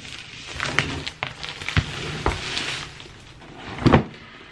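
Plastic shrink wrap crinkling and cardboard packaging rustling as a product box is unwrapped and opened, with a single thump a little before the end as the box lid comes open.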